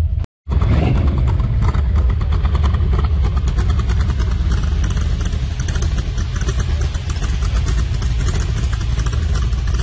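Open-engine hot rod's motor idling with a fast, even pulsing exhaust over a deep rumble.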